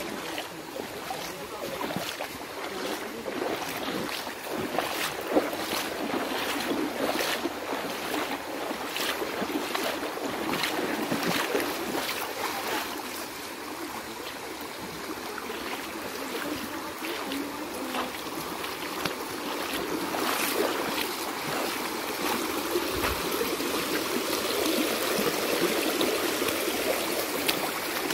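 Shallow river water rushing over stones, with the repeated splashes of feet wading through it at a walking pace.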